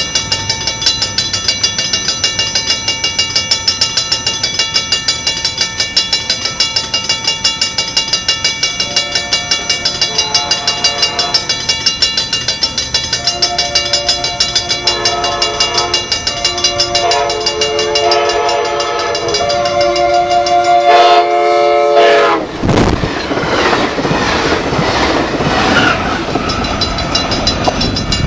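Railroad grade-crossing bell ringing in quick, even strokes as the crossing gates lower. About a third of the way in, the approaching Amtrak Pacific Surfliner's air horn sounds the crossing signal of long, long, short, long, the last blast held until the train reaches the crossing. The train, cab car leading and F59PHI diesel locomotive pushing, then passes at speed with a sudden loud rush of wheel and rail noise.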